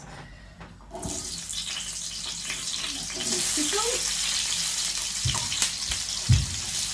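Chopped peppers and onions dropped into a smoking-hot paella pan, bursting into a loud steady sizzle about a second in, with a few knocks of utensil on pan near the end.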